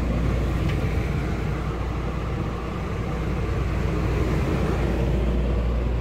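Rooftop RV air conditioner running on cold: a steady rush of air from the fan with a constant low hum from the unit.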